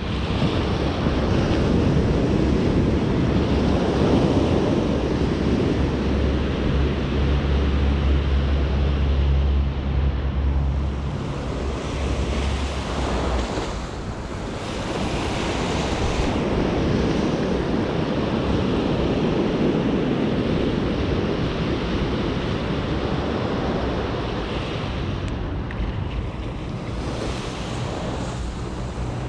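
Waves washing onto a beach, a steady rush of surf, with wind buffeting the microphone. The wind rumble is heaviest from about six to thirteen seconds in.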